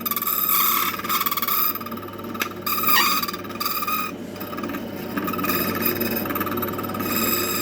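Key-cutting machine running: its spinning cutter whines steadily while it grinds and scrapes along a metal key blank, with a few sharp clicks about three seconds in.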